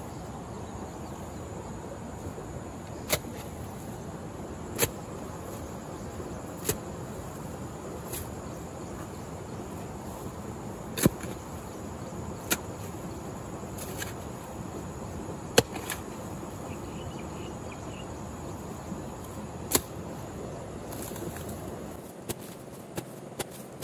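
A hoe's blade striking into damp soil as it is dug over: single sharp knocks every two to four seconds over a steady background hiss. Near the end come several lighter, quicker knocks.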